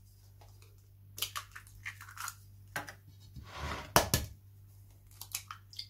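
Eggshells being cracked and broken open over a mixing bowl: a series of small crackling clicks and crunches, with a sharper knock about four seconds in as an egg is tapped against the bowl.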